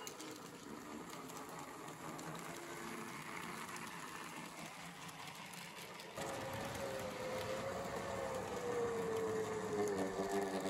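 Small narrow-gauge (009) model train running on its track: the whir of its small electric motor and the wheels on the rails. About six seconds in the sound steps up louder, with a steady whine that drops in pitch near the end.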